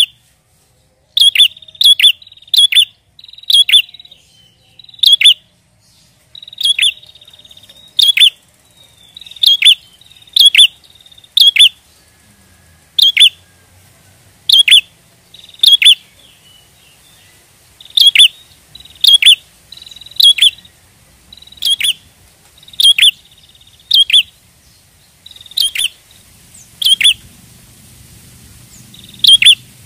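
A prinia (prenjak) calling in full voice: short, sharp, high chirps, each with a quick falling tail, repeated in an irregular series about once or twice a second.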